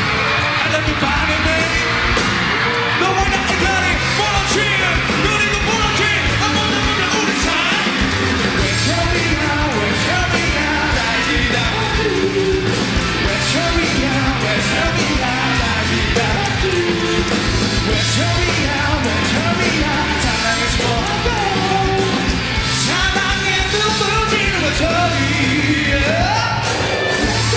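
Live pop-rock band performance: a male lead vocal singing over electric guitars, bass and drums, with the audience cheering.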